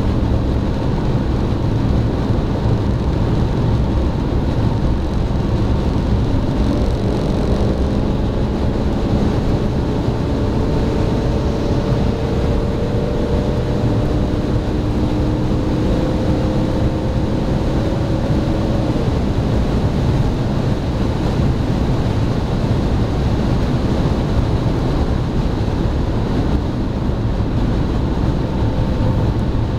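Steady road and wind noise inside the cabin of a BMW 330d at Autobahn speed, with its straight-six diesel running underneath. A faint hum rises slowly in pitch from about seven seconds in and fades out around nineteen seconds.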